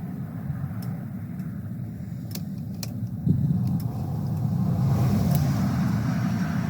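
Car driving, with a steady low rumble of engine and road noise heard from inside. It gets louder about three seconds in, with a few faint clicks over it.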